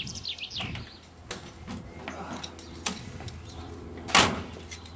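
Small clicks and a few faint bird chirps, then a single sharp clunk about four seconds in, from the door of the small classic car as its driver gets out.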